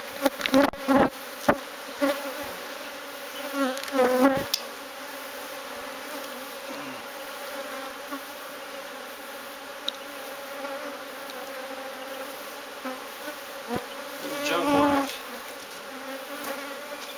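A swarm of honeybees buzzing around an opened hive, a steady many-voiced hum that swells louder twice with a rising and falling pitch. A few sharp knocks sound in the first two seconds.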